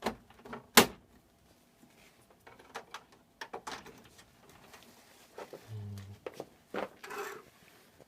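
HP LaserJet P3005 printer's metal memory cage and plastic side cover being closed: a series of sharp clicks and knocks, the loudest a snap about a second in, with more scattered clicks later.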